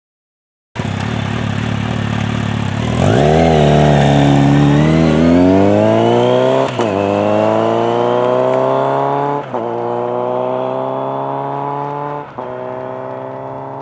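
Kawasaki Z900RS inline-four through an aftermarket 4-2-1 header and muffler, idling, then pulling away: a short rev, then rising pitch through the gears with three quick upshifts, fading slightly as the bike moves off.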